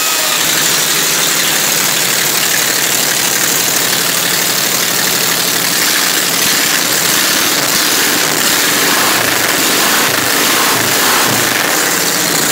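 A motor or engine running steadily and loudly, with a strong hiss over it.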